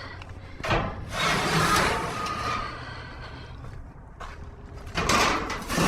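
Junk being dragged and shifted inside a dumpster: two stretches of scraping and rustling, one about a second in and another near the end.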